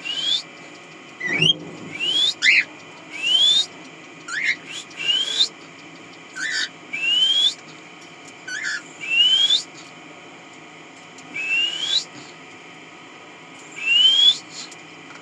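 A small pet parrot whistling: about a dozen short rising whistles, many paired with a quick lower note, repeated every second or two with a longer pause near the middle.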